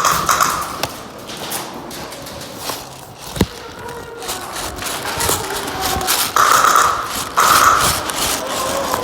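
Airsoft guns firing short bursts, each a buzzing rattle of about a second that starts and stops abruptly: one at the start, then two close together near the end, with scattered clicks and knocks between.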